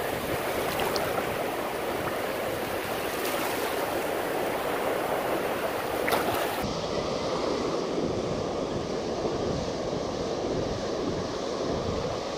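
Surf washing in over a sandy beach, with the shallow foamy swash rushing around the feet and hands as a steady hiss; the hiss turns duller about halfway through.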